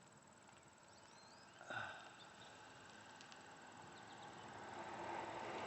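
Faint outdoor ambience: a steady high-pitched insect trill with a few short bird chirps about a second in. A single knock comes just under two seconds in, and a rustling noise builds toward the end.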